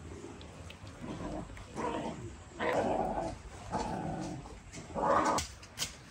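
A dog giving about five drawn-out cries, each under a second long, the loudest in the middle and near the end.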